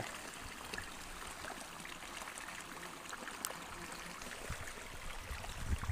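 Small shallow stream flowing steadily through grass, an even rush of running water.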